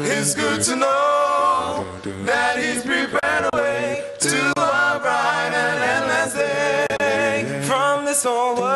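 Male vocal group singing a gospel song a cappella in close harmony through stage microphones, a bass voice holding low notes beneath the upper parts.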